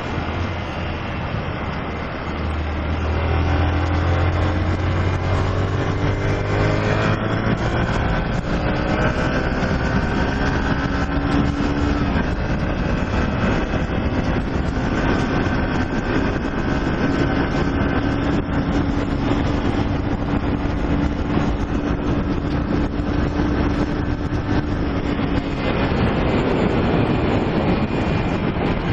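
Honda CG 125 Fan's single-cylinder four-stroke engine under way on a ride. Its note climbs steadily for several seconds as the bike accelerates, then holds level at cruising speed, over a constant rush of wind noise.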